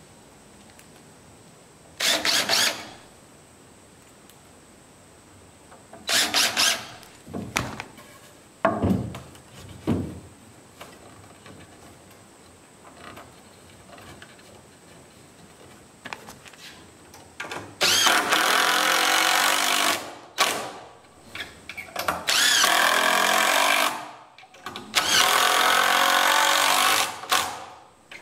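Cordless drill driving screws into 2x4 lumber: two short bursts, a few knocks as the boards are set in place, then four long runs of the drill in the last third as screws are driven into the corner joint.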